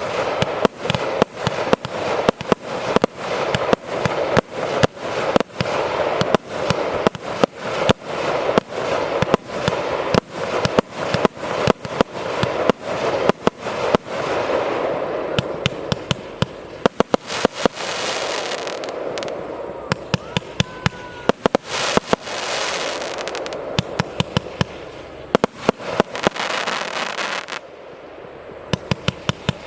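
Consumer fireworks battery (cake) firing its shots in quick succession, about three bangs a second at first. In the second half the shots come more sparsely, with crackling, hissing bursts between them.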